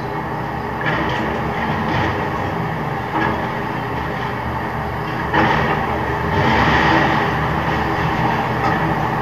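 Excavators demolishing a concrete building: a steady mechanical din with scattered knocks and crunches of broken concrete and steel, growing louder about halfway through.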